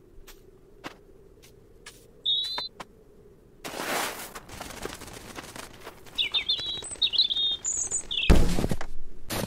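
Cartoon sound effects: a small bird chirping and tweeting in short bursts, a brief rustle about four seconds in, and a loud thud near the end as the cat pounces at the bird.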